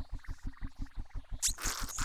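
Soundtrack of the children's programme: a steady low pulsing, about eight beats a second. A soft hissing sound, fitting a quiet sip of juice, comes in about one and a half seconds in.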